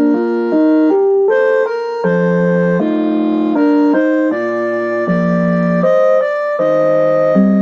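Municipal outdoor-loudspeaker music chime playing an electronic melody, the 5 p.m. time signal: held notes over chords, stepping to a new note every half second to a second.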